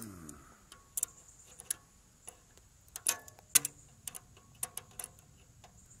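Tongue-and-groove pliers clicking and clacking on aluminum coil tubing and its soldered return bends: sharp, irregular metal clicks, the loudest a little past the middle, as the joints are yanked and twisted to test whether the solder holds.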